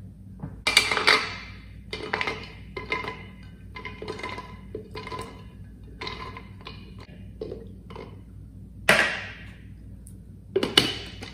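Walnut pieces clattering into the plastic cup of a small personal blender, heard as a string of light knocks and taps, with a louder rattle about nine seconds in and another near the end as the blender's blade base is handled.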